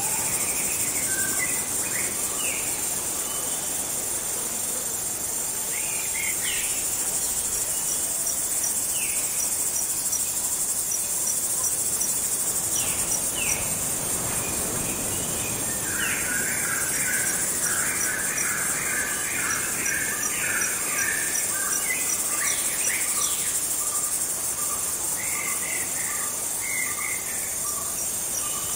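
Night jungle ambience: a steady high chorus of insects with cricket chirps in short runs, and scattered bird calls. Partway through, a dense burst of chattering calls sets in for several seconds, and from then on a soft note repeats at an even pace of about one a second.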